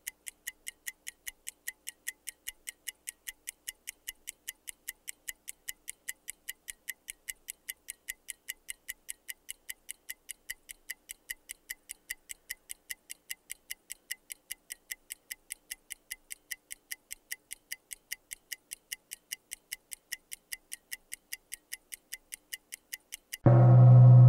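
Clock-ticking sound effect, a steady tick about three times a second, counting off thinking time while a puzzle is on screen. Near the end a loud, low ringing tone with several pitches cuts in suddenly and replaces it.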